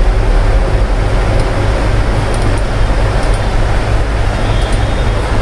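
Steady low rumble of background machine or room noise, with a few faint, short clicks scattered through it.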